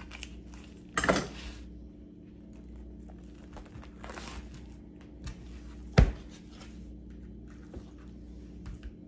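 Plastic cling wrap over a foam tray of raw chicken breasts being slit with a knife and pulled back, crinkling and tearing in short bursts, the strongest about a second in. A single sharp knock about six seconds in is the loudest sound.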